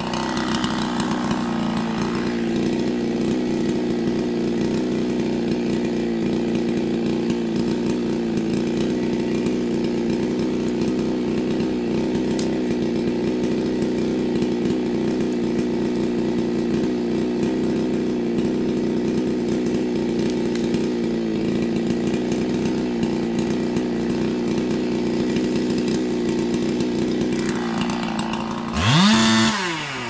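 A ported big-bore Husqvarna 372XP two-stroke chainsaw running steadily, then revved sharply up and back down about a second before the end.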